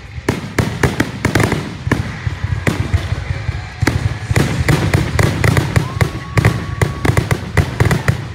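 Fireworks display: a rapid, dense string of shell bursts and launch bangs, several a second, over a continuous low rumble.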